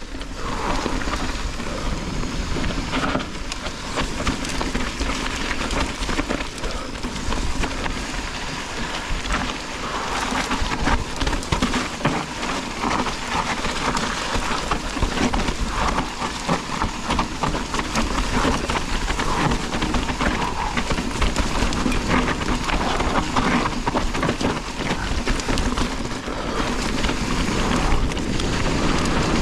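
Mountain bike ridden over a wet, rocky trail in the rain: a steady wash of tyre, rain and wind noise, dotted with many small rattles and knocks from the bike.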